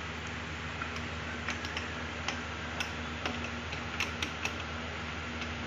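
Light metallic clicks and taps, a handful at irregular intervals, as a steel gear and collar are worked by hand onto a shaft in a tractor gearbox housing. A steady low hum sits underneath.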